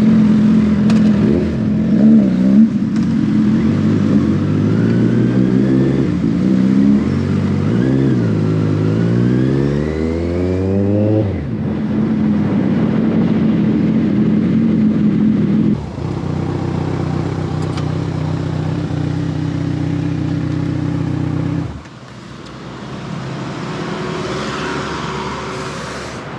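Motorcycle engine heard from a bike on the move. It idles steadily at first, then the revs climb in two long rises with a short dip between them, as in pulling away through the first gears. The throttle closes suddenly about eleven seconds in, the engine runs steadily at low speed, then drops to a quieter level near the end.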